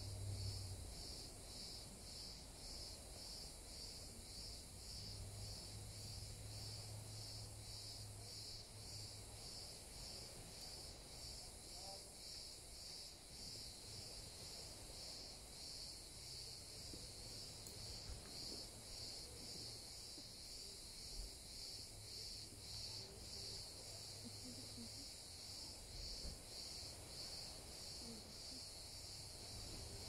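Crickets chirping in an even, steady rhythm of about two chirps a second, over a fainter steady high-pitched hiss.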